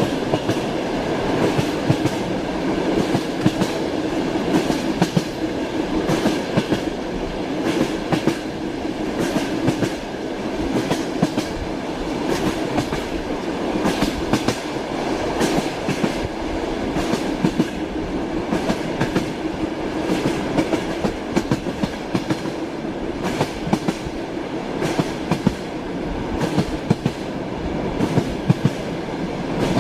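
Train wheels knocking over the rails: a steady running rumble with repeated clickety-clack clicks.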